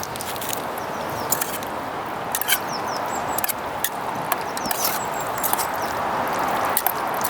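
Steady wind noise with irregular sharp clicks and taps, about two a second.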